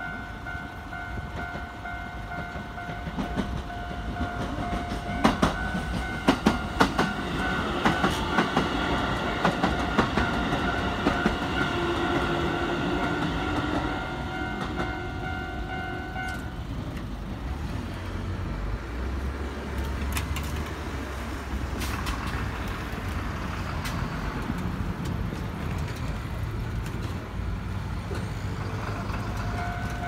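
Japanese level-crossing warning bell ringing steadily while a Keikyu 1000-series train runs past, its wheels clicking sharply over rail joints. The bell stops a little past halfway and a low train rumble carries on, and the bell starts again near the end.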